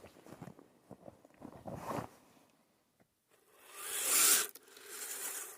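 Radio-controlled scale crawler's electric motor and geared drivetrain whirring in throttle bursts as it crawls through snow and over rocks, with soft crunching from the tyres. A short pause in the middle, then a burst that swells and fades about four seconds in, and a weaker one near the end.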